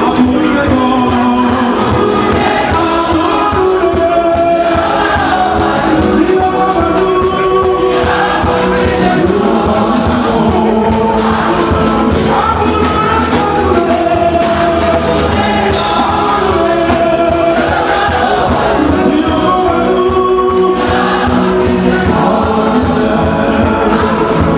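Gospel choir singing over a band with a steady drum beat.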